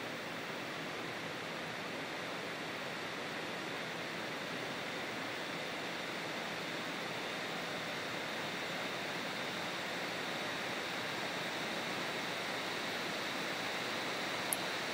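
Steady, even hiss of recording noise, with no distinct snaps of the traps or clacks of the balls to be heard, and a single faint tick near the end.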